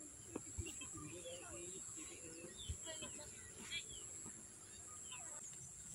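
Birds chirping and calling in short, scattered notes over a steady high-pitched hum, with faint voices low in the background.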